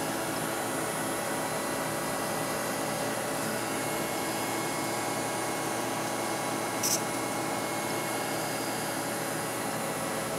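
Steady hissing noise with faint humming tones, like a blower running, and one brief high-pitched hiss about seven seconds in.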